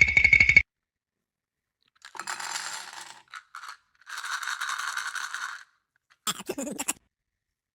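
A rapid ticking rattle with a ringing tone that stops about half a second in. After a gap come two stretches of scraping, rustling noise, the first about a second long and the second about a second and a half, with a few quick clicks near the end.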